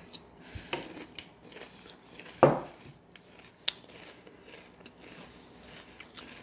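Someone chewing crisp, milk-wetted bran flakes, with a few sharp clicks and crunches; the loudest comes about two and a half seconds in.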